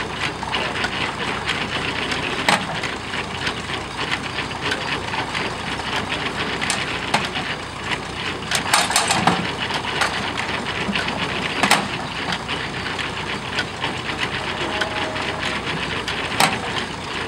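Vintage stationary hay baler working as hay is fed in: a steady mechanical clatter from the running machine, with sharp knocks now and then and a louder burst of them about halfway through.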